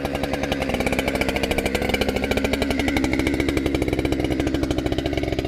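Husqvarna 592 XP two-stroke chainsaw running steadily with a fast, even pulsing, the engine that has just been hard to start.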